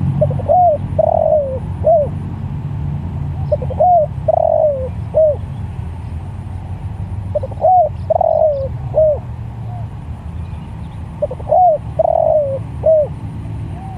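Spotted dove (tekukur) cooing: four repeats of its phrase, each a short coo, a longer falling coo and a short closing coo, about every four seconds.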